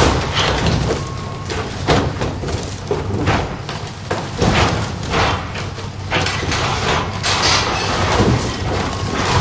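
Excavator engine running steadily, with repeated irregular cracks and crunches as its arm tears apart a waterslide's tubes.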